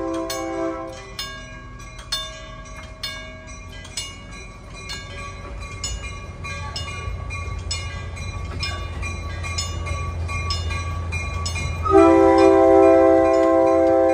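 Wig-wag crossing signal's bell ringing steadily, about two strikes a second, while the miniature diesel-outline locomotive's rumble builds as it approaches. The locomotive's multi-tone horn fades out in the first second, then sounds a long, loud blast about twelve seconds in.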